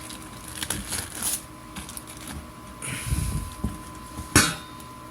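Exhaust-kit parts and packaging being handled: rustling with light clicks and knocks, and one sharp knock a little over four seconds in.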